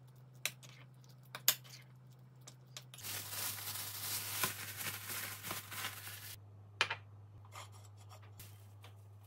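Handling noises: a few sharp taps and clicks, and for about three seconds in the middle a dense rustling, crinkling noise like plastic packaging being handled.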